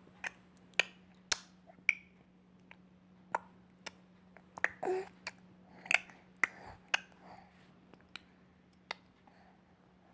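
Baby making a string of sharp clicking sounds with the mouth, irregularly spaced, with a short voiced sound about five seconds in.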